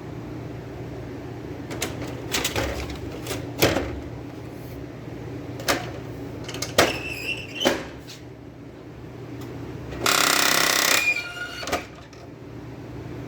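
HP LaserJet M600-series laser printer making the abnormal noise it is being checked for: scattered knocks and clacks over a steady hum, then a loud harsh rattle lasting about a second.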